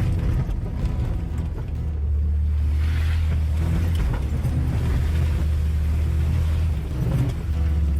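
A vehicle engine running steadily, with a low drone that shifts pitch a couple of times.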